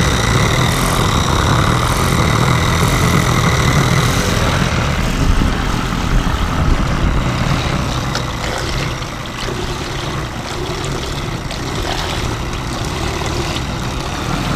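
Small single-cylinder model marine steam engine (10 mm bore, 18 mm stroke, all ball bearings) running steadily on steam, its propeller churning water in a tub. A thin high whine sits over it for the first four seconds or so, and the sound eases a little about nine seconds in.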